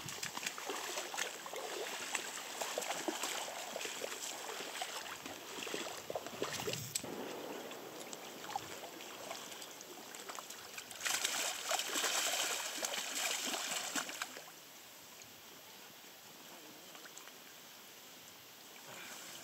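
Water splashing as a hooked coho jack thrashes in the shallows and is grabbed by hand, with a louder stretch of splashing a little past the middle. After that only the quieter, steady rush of the river remains.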